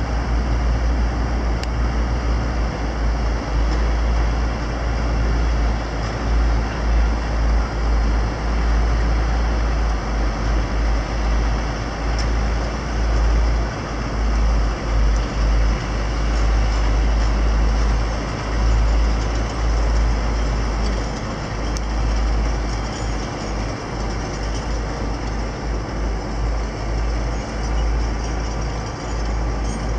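Steady outdoor background noise with an uneven low rumble that swells and fades every second or so.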